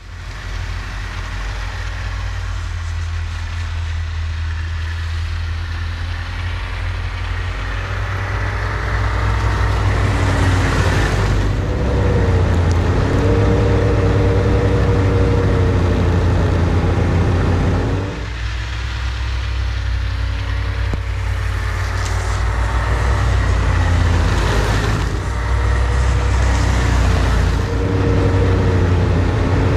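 Snowmobile engine running under throttle as it is driven back and forth over the snow, its pitch rising and falling with the throttle. It eases off briefly about eighteen seconds in, then picks up again.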